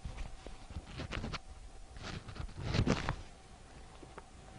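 Scattered soft rustles and light knocks in the first three seconds, then a faint steady tone.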